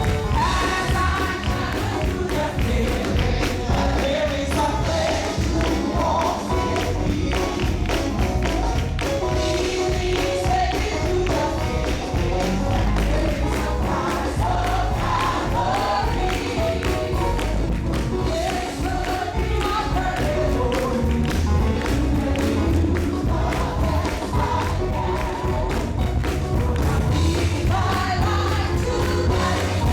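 Live gospel worship music: a band with heavy bass and percussion plays while a group of voices sings along.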